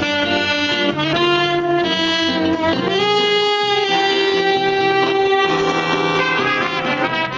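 A band's horn section, saxophones and trumpets, playing together in held notes, with one long sustained chord from about three to five and a half seconds in.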